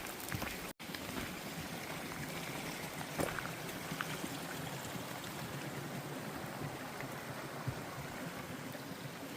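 Steady rush of running creek water with a few faint clicks; the sound drops out for an instant under a second in.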